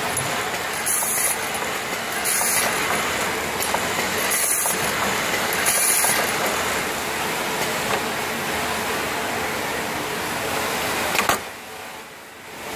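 Automated machine running with a steady mechanical whir. Short high hissing bursts come about every second and a half in the first half. About eleven seconds in there is a sharp clunk, and the noise drops away briefly before it picks up again.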